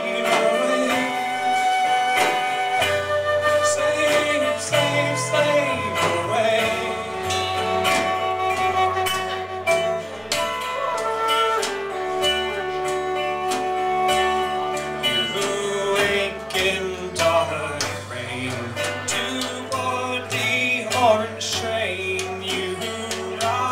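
Live folk band playing an instrumental passage: a flute carries the melody over a plucked banjo and keyboard, with the keyboard's bass notes moving underneath.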